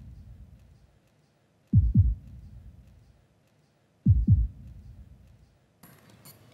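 Award-show suspense sound effect: deep heartbeat-like double thumps, each falling in pitch and dying away, repeating about every two and a half seconds while the winner's name is held back.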